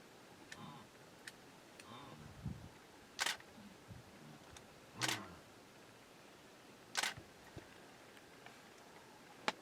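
Three short, sharp clicks about two seconds apart, and a smaller click near the end, over a quiet background with faint low murmurs early on.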